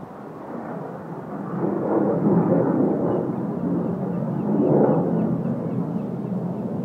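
Hawker Hunter jet's Rolls-Royce Avon turbojet rumbling as it flies past at a distance, swelling about a second and a half in and again near five seconds.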